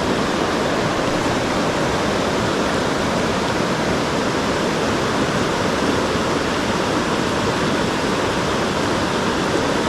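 Mountain stream water rushing steadily, an even, unbroken wash of sound.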